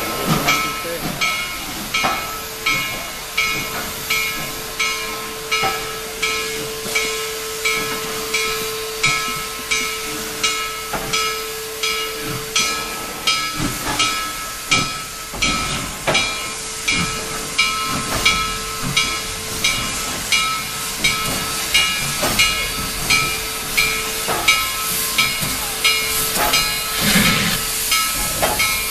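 Steam locomotive working, its exhaust chuffing in steady, even beats about three every two seconds over a constant steam hiss, with a faint steady tone alongside for most of it.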